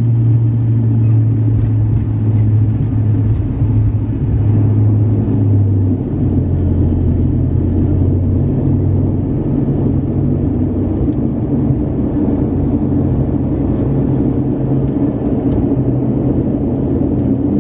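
Passenger airliner heard from inside the cabin during landing: a steady low engine drone over a broad rumble, its pitch stepping down slightly about six seconds in.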